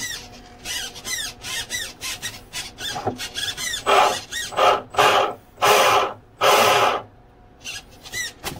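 RC boat rudder servo whining in short, repeated bursts as the rudder is swung back and forth from the transmitter, each burst sweeping in pitch. About four seconds in, the bursts get longer and louder, then stop briefly before two or three short ones near the end.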